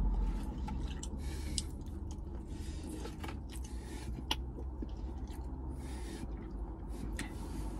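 A person chewing food with the mouth closed, with scattered short clicks of a plastic fork picking at the food, over a low steady hum.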